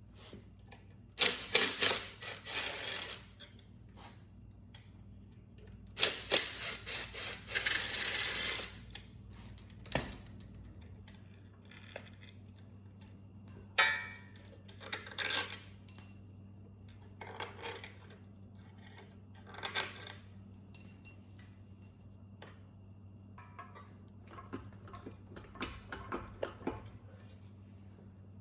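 Metal parts and hand tools clinking and rattling as a generator head is taken apart, with two longer clattering bursts in the first third, then scattered single clinks. A faint steady low hum runs underneath.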